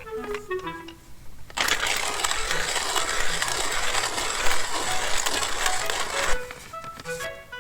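Background music with plucked notes, cut by about five seconds of loud, dense crunching noise that starts and stops abruptly.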